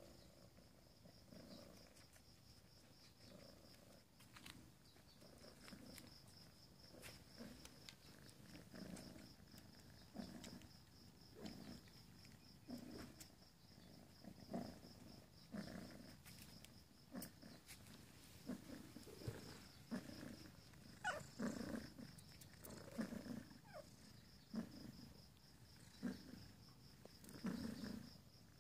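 Faint, steady cat purring from a mother cat nursing two grown kittens, swelling and fading about every second and a half and growing louder in the second half.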